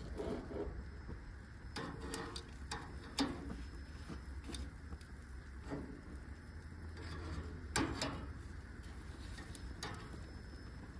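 Irregular light clicks and taps of metal tongs and a knife against a plastic cutting board and the grill's grate as food and tortillas are moved, over a low steady hum.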